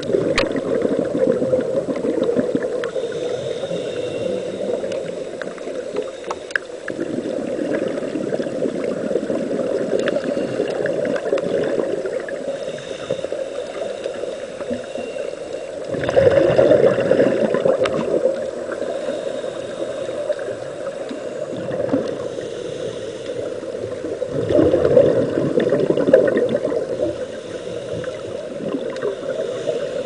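Underwater rush of water from a strong drift current, with scuba regulator exhaust bubbles surging louder for about two seconds at a time, once around the middle and again near the end.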